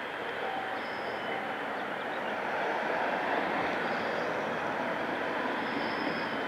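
Distant vehicle noise: a steady rushing that swells a little around the middle, with a couple of faint short high tones over it.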